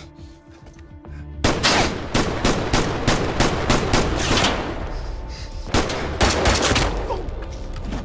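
Rapid gunfire: a volley of many shots in quick succession begins about a second and a half in, breaks off briefly, then a second volley comes near six seconds in.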